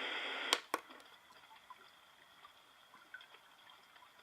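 A white noise machine's steady ocean sound plays for about half a second, then two button clicks and it switches to a much fainter sound of scattered water drips.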